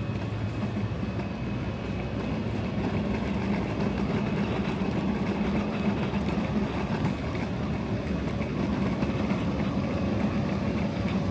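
Steady low rumble and hum of a large warehouse's background noise, with no distinct events.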